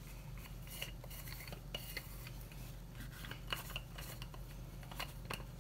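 Faint, scattered light clicks and taps of kitchen items being handled, over a low steady hum.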